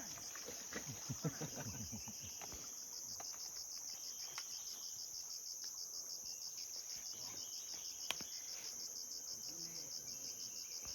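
Jungle insects calling in a steady, high-pitched, rapidly pulsing chorus. A single sharp click comes about eight seconds in.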